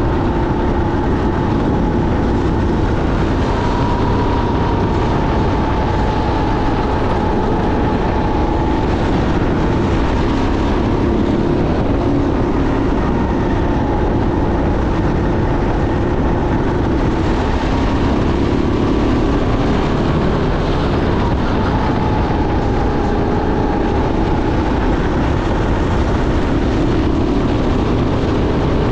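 Sodi rental go-kart engine running at racing speed, its pitch rising and falling a little through the corners, over steady wind and road noise.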